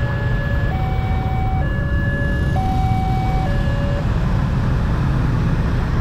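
Railway level-crossing warning alarm sounding an alternating two-tone hi-lo signal, about a second per tone, that stops about four seconds in; it signals an approaching train. A steady low rumble runs underneath.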